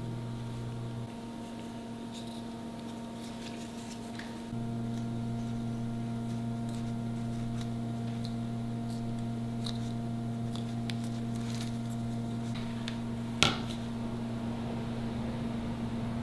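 Steady electrical hum with a few higher steady tones above it; the hum drops a little about a second in and comes back louder about four and a half seconds in. Light scattered clicks and taps sound over it, and there is one sharp click a few seconds before the end.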